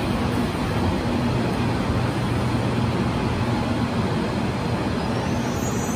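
Rapid KL LRT train moving alongside the station platform: a steady rumble with a low hum, and a faint rising whine near the end.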